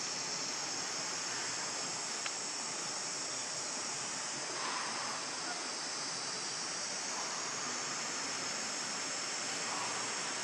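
Steady outdoor ambient hiss, strongest in the high range, with a single faint click about two seconds in.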